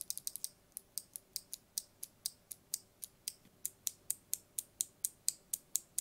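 A loose Kailh BOX Jade-style clicky keyboard switch, a hybrid of BOX Midnight Jade and BOX Mute Jade parts, pressed over and over between the fingers. It gives a string of light, sharp clicks, quick at first, then steady at about four a second.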